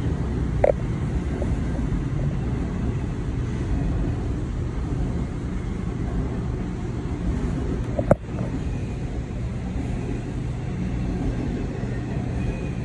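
Empty TTX intermodal freight cars rolling past close by: a steady rumble of steel wheels on rail. A single sharp knock comes about eight seconds in.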